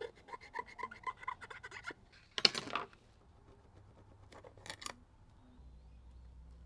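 A hand tool scraping the Samsung Galaxy S4's frame clean: a quick run of short scratchy strokes, about five a second, then one louder scrape and two brief ones. A faint low hum comes in near the end.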